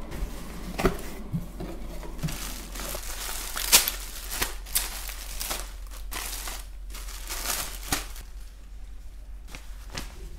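Crinkling and rustling of clear plastic garment bags and packing as shirts are handled and taken out of a cardboard shipping box, with many sharp crackles, the loudest about four seconds in.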